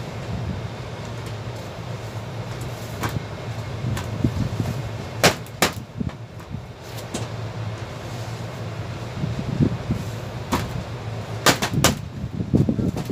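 Sharp metal knocks and clanks from hands and tools working on sheet-metal ductwork while a volume damper is taken out, about six scattered strikes with close pairs near the middle and the end. A steady low hum runs underneath.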